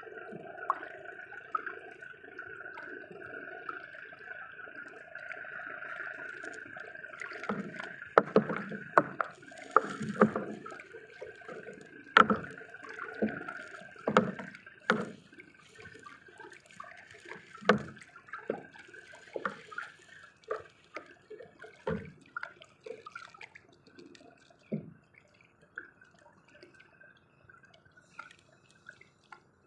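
Water splashing and dripping, with irregular knocks and clunks that come often in the middle and grow sparse near the end.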